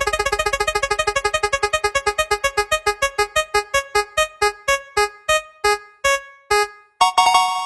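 Electronic keyboard sound effect: a quick run of repeated synth notes that gradually slows down and stops, followed by a short bright chord near the end.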